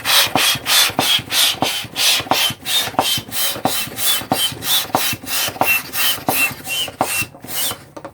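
Bestway Air Hammer manual hand pump being worked fast, each stroke a rush of air, about two and a half strokes a second, inflating a balloon. The pumping stops near the end.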